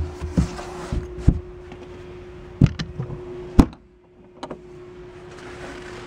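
Several short knocks and thumps, about eight in six seconds, the loudest a little past halfway, as the carpeted storage hatch and a plastic deck fitting of an aluminium fishing boat are handled. A steady low hum sits underneath.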